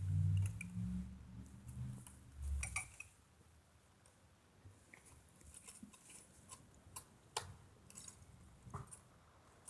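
Light metallic clicks and clinks of tools and bicycle parts being handled, scattered irregularly, with a low rumble during the first three seconds or so.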